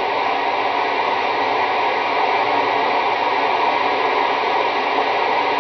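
Steady static hiss from a CB radio's speaker between transmissions, even and unbroken.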